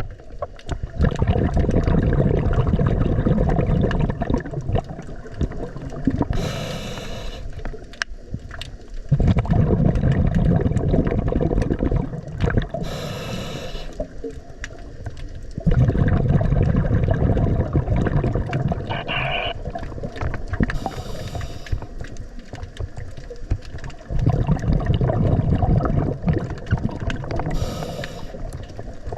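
Scuba diver breathing underwater through a regulator, about four breaths: each a short hissing inhale followed by a long low rumble of exhaled bubbles.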